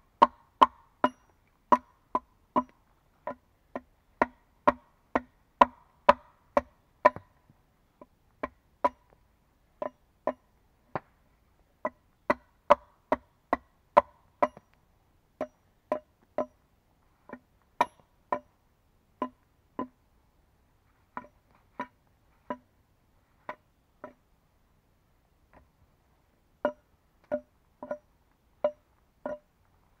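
Axe blows chopping into an upright wooden log, sharp strikes at about two a second, each ringing briefly at the same pitch, with a few short pauses between runs of blows.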